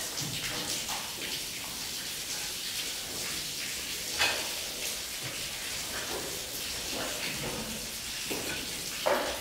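Heifer rubbing her head and neck against a metal headlock feed fence to scratch an itch, the fence scraping and rattling, with two louder clanks about four seconds in and near the end. A steady hiss of rain runs underneath.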